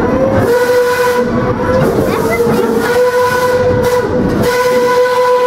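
Steam locomotive whistle blowing one long, steady blast that starts about half a second in, over the hiss of steam.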